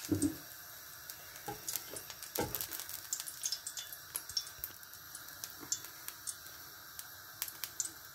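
Cooking oil heating in a nonstick pan, giving faint scattered ticks and crackles, with a few soft knocks in the first couple of seconds.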